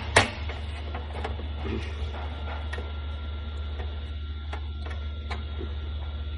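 Small mechanical clicks and ticks from the paper cutter's side guide and its parts being handled: one loud sharp click just after the start, then scattered light ticks over a steady low hum.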